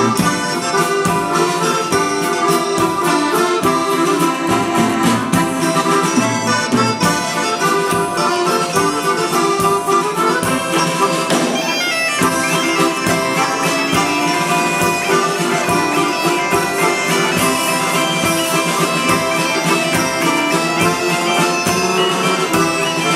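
Folk band playing a jota: a reed wind instrument carrying the tune over accordion, plucked guitar-type strings and a drum kit keeping a steady beat.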